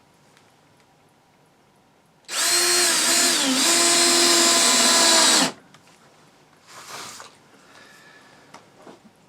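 Power drill running for about three seconds, starting about two seconds in, its pitch dipping briefly partway through before it stops abruptly. A short, softer noise follows a couple of seconds later.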